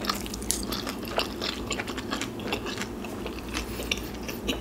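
A person chewing a pan-fried pork and vegetable dumpling with her mouth closed, with irregular wet mouth clicks and smacks.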